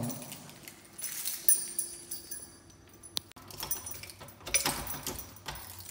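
A bunch of keys jangling, with one sharp click about three seconds in, as the apartment's front door is unlocked and opened.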